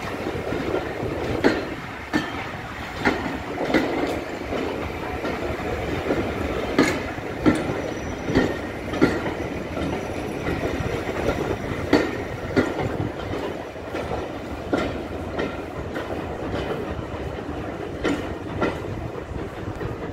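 Passenger coaches of a departing train rolling past at low speed, with a steady rumble and a sharp, irregular clack from the wheels over rail joints every second or so.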